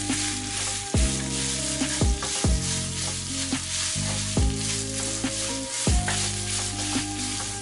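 Leftover spaghetti in tomato sauce sizzling as it fries in oil in a pan, stirred and turned with a spatula, over background music with a steady beat.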